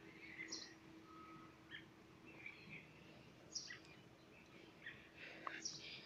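Near silence: a steady low hum with faint, scattered short high chirps.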